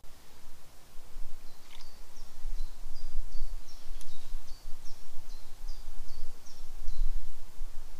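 A small songbird singing a string of short two-note phrases, each stepping from high to a little lower, about two a second for several seconds. Under it runs a low, uneven rumble of outdoor background noise.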